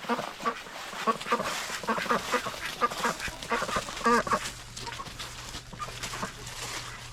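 Flock of poultry calling: many short squawks and quacking calls overlapping in quick succession. A faint steady low hum comes in about three seconds in.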